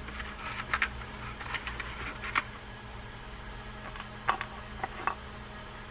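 Scattered light clicks and taps of small steel case screws being picked up and a plastic-bodied spinning reel being handled, over a faint steady hum.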